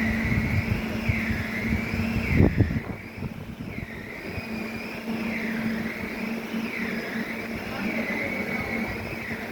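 Heavy sawmill machinery running with a steady motor hum and a warbling tone that rises and falls about once a second. A loud low rumble swells about two and a half seconds in, after which the machine noise drops.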